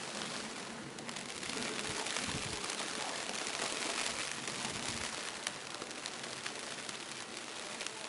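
Blizzard ambience: an even hiss of wind and driven snow, with faint crackles throughout.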